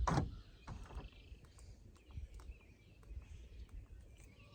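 2004 Honda Civic rear door's power lock actuator cycling: a short clunk right at the start and a weaker one under a second later, then only faint small clicks. The lock is unlocking more smoothly now that it has been reassembled.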